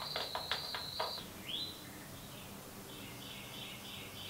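Insects chirring in a steady high pulsing drone that stops about a second in, with a few faint clicks early. A short rising bird call follows, then faint bird chirps.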